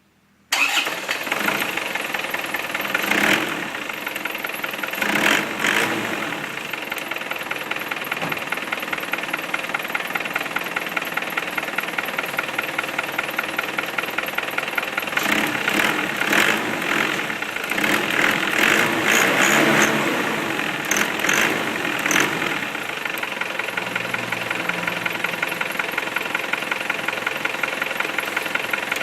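Isuzu D-Max diesel engine, its EGR blocked off, starting about half a second in and then running at idle with a steady, regular clatter. It swells louder a few times in the middle.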